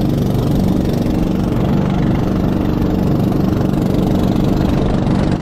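Small fishing boat's engine running at speed, a steady loud drone, with water rushing and splashing along the hull.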